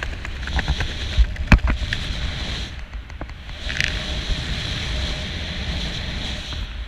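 Wind rushing and buffeting over the camera's microphone as a ram-air parachute canopy opens and the jumper slows, with a sharp crack about a second and a half in.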